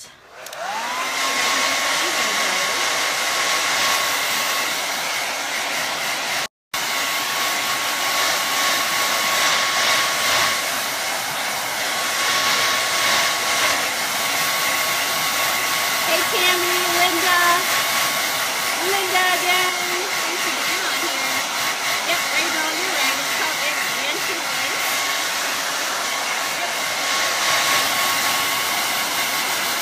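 Handheld hot-air blower running steadily to dry freshly brushed chalk paint. Its motor spins up in the first second to a steady whine over the rush of air. The sound drops out for a split second about six and a half seconds in.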